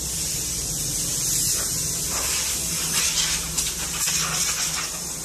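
Car-wash hose spraying at a car: a steady hiss that gets louder and denser in the middle, over a low steady machine hum.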